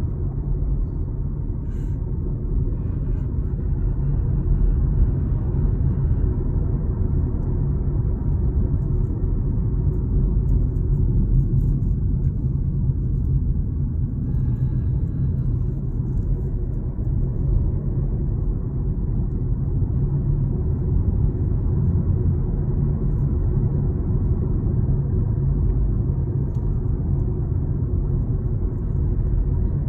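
2021 Kia Sportage on the move, heard as a steady low rumble with a few faint scattered clicks. This is the unwanted extraneous noise the owner hears in the new car.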